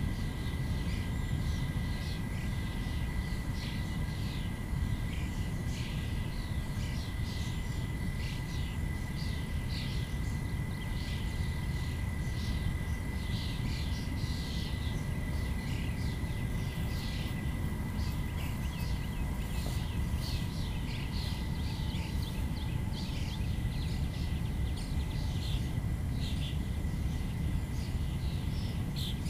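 Outdoor field ambience: wind rumbling on the microphone, with many short bird chirps and a steady thin high tone running underneath.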